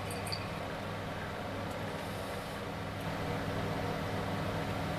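Vacuum pump running with a steady low hum, drawing a slurry through a glass filter funnel during suction filtration.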